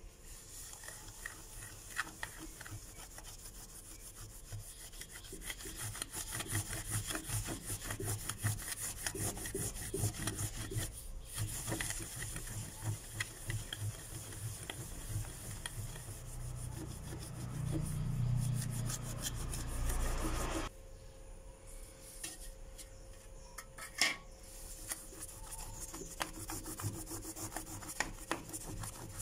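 Cloth rubbed briskly by hand over an embossed brass plaque, buffing off polishing paste, in rapid scrubbing strokes. The rubbing grows louder toward the middle, eases off abruptly about two-thirds through, and a single sharp tap follows near the end.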